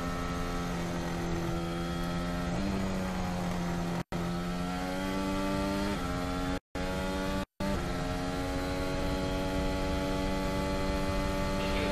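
Formula 1 car's V6 turbo-hybrid engine on board at high revs, its pitch stepping at gear changes and then climbing steadily as the car accelerates down a straight. The sound cuts out briefly three times in the middle.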